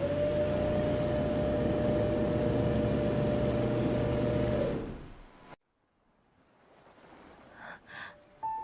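A ship's horn sounds one long, steady blast of about five seconds over a heavy low rumble, then stops abruptly.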